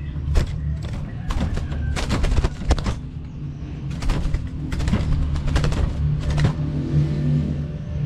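Orange-headed thrush fluttering and flapping about inside a wire bird cage, its wings and feet knocking against the bars in several flurries of rattling clatter, over a steady low hum.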